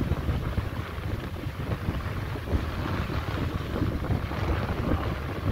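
Wind buffeting the microphone over the steady rush of surf breaking on rocks.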